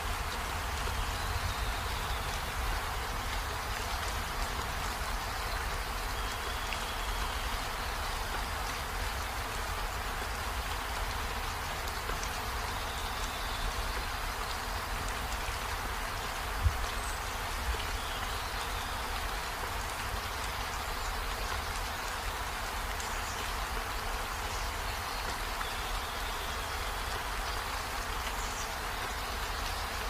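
Steady rain falling, an even hiss with a low rumble beneath. A few faint, short, high chirps come through, and there is one sharp tap a little over halfway through.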